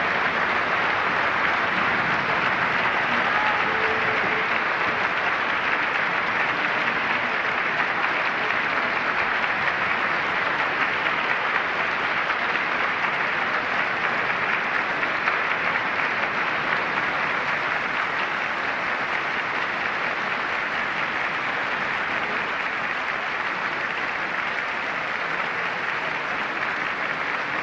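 Audience applauding, a steady dense clapping that eases off slightly toward the end.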